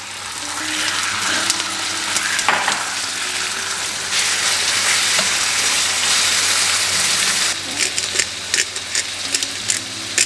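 Marinated chicken pieces and sliced onions sizzling as they fry in a nonstick wok, stirred with a silicone spatula. The sizzle grows louder a few seconds in, and a quick run of sharp clicks comes in the last few seconds.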